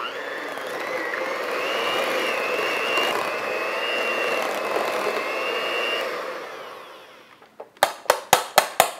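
Electric hand mixer running steadily with a whine as its beaters work soft cheese spread in a stainless steel bowl, then winding down about six seconds in. Near the end comes a quick series of about seven sharp clicks, the metal beaters knocking against the bowl.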